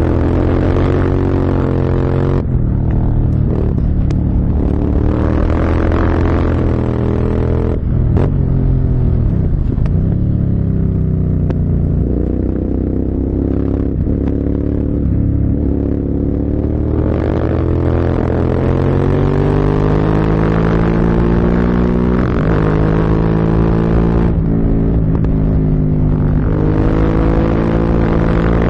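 Motorcycle engine under way, revving up through the gears with brief dips at each shift. The pitch falls for a few seconds around a third of the way in as it slows, then climbs again in long pulls.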